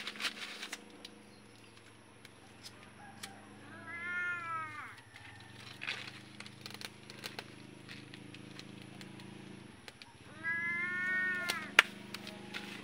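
A domestic cat meowing twice, two drawn-out meows that each rise and then fall in pitch. Scattered small clicks and a sharp snap just before the end sound around them.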